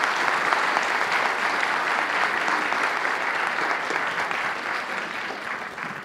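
Audience applauding at the close of a talk: steady clapping that eases off near the end.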